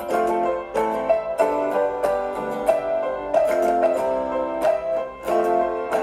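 Instrumental background music led by piano, a melody of struck notes in a steady rhythm.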